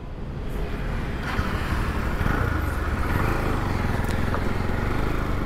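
Motorcycle setting off and riding along the road: the engine noise builds over the first second or so, then runs steadily.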